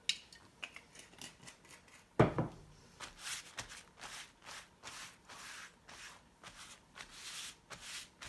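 Palms rubbing oil over a soaked lotus leaf: a papery, swishing rub in repeated strokes, about two a second, from about three seconds in. One sharp knock about two seconds in is the loudest sound.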